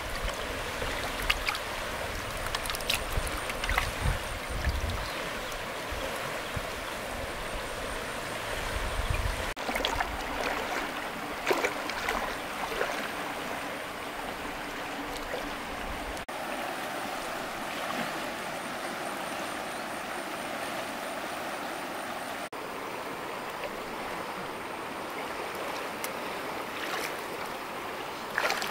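Shallow river water with a steady rush, and now and then short splashes of someone wading or working in the water.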